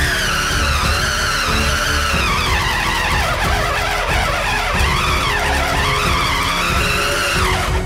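Black+Decker cordless drill, running off a car battery, boring into a wooden beam: its motor whine rises and falls in pitch as the bit loads and frees, then drops away sharply near the end as the drill stops.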